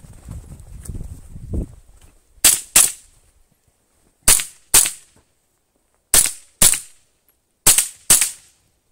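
A .22 LR minirifle fired in four quick pairs, eight sharp cracks in all: the two shots of each pair about half a second apart, the pairs about a second and a half apart. A low rumble comes before the first shot.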